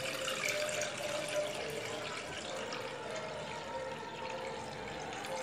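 Water poured in a steady stream from a jug into a metal cooking pot, splashing as the pot fills.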